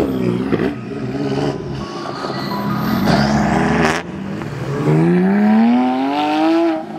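Car engine revving as the car accelerates away, its note climbing steadily for about two seconds near the end before dropping off.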